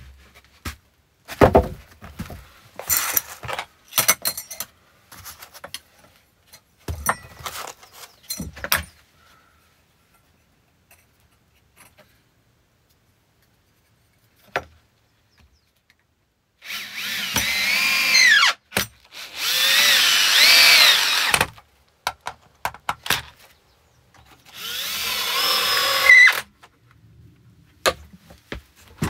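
Wooden knocks and clatter as pine boards are handled, then a cordless drill driving screws in three runs of about two seconds each, its motor whine rising and falling as the screws bite.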